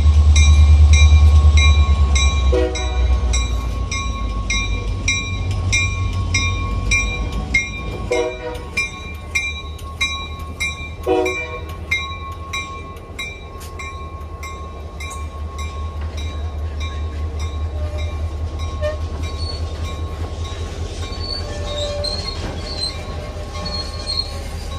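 Diesel locomotive moving slowly through a rail yard with its bell ringing steadily, about twice a second. The engine's heavy low rumble fades after the first few seconds, three short low sounds come through in the middle, and thin wheel squeals rise near the end.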